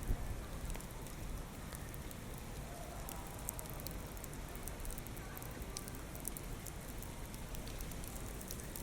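Heavy typhoon rain falling, with many drops ticking on surfaces close by over a steady low rumble of wind and storm noise.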